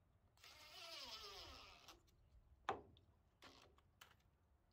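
Cordless drill/driver running briefly at the foot of a gazebo post while driving a fastener, its whirring pitch falling as it slows under load. It is followed by a sharp click a little under three seconds in and a short rattle about a second later. All of it is faint.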